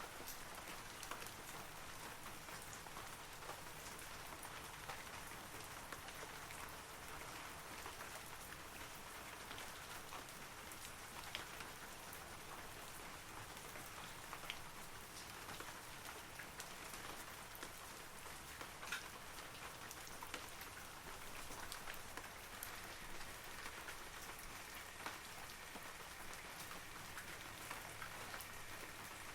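Steady rain falling on forest trees, a soft even patter with scattered close droplet ticks.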